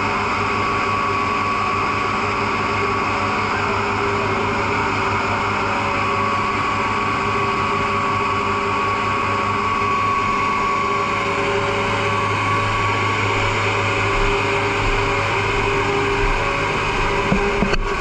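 Fire truck engine running, a steady mechanical drone, with a deeper rumble coming in near the end.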